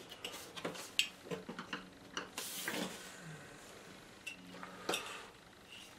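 Scattered small taps, clicks and rustles of a card mount being handled and pressed into place over a painting on a board, with one sharper tap about a second in and a longer rustle a little after two seconds.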